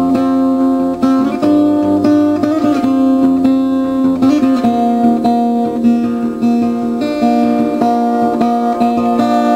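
Acoustic guitar music: plucked notes and chords changing every second or so.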